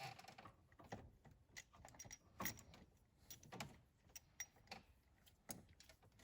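Faint, irregular clicks and light metallic knocks of tools and small engine parts being handled, part of fitting diesel injectors.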